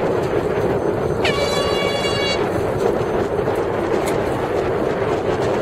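A single blast of the race committee boat's air horn about a second in, lasting about a second: it swoops up briefly, then holds one steady tone. Behind it, steady wind and water noise.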